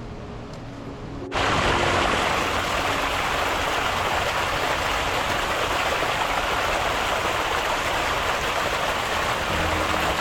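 Steady rushing water cutting in suddenly about a second in, over faint background music.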